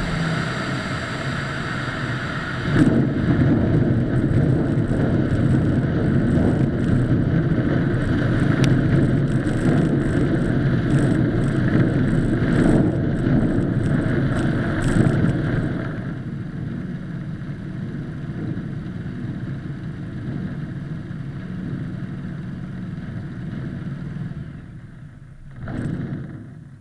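Light sport aircraft's piston engine and propeller running as it taxis. The sound gets louder about three seconds in and drops to a lower, quieter setting after about sixteen seconds. It dies down near the end with one brief swell.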